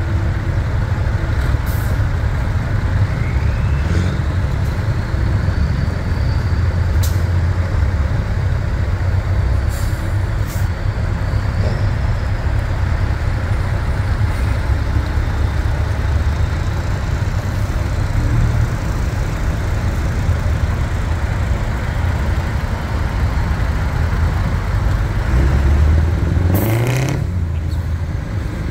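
Vintage trucks' diesel engines running as they pull in, with several short air-brake hisses. Near the end one truck revs up, its engine pitch rising.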